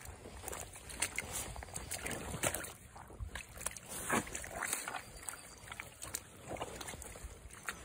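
Rubber boots wading through shallow muddy water: footsteps splashing and sloshing at an uneven pace, several steps in a row.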